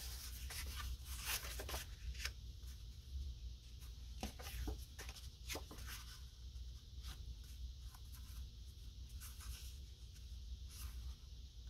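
Cardstock sheets handled and layered by hand: short scattered rustles and scrapes as the pieces slide against each other, busiest in the first couple of seconds and again around four to six seconds in.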